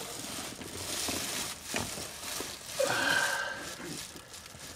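Rustling and light clicks of hands handling LED wiring and small plastic connectors, with a brief pitched sound about three seconds in.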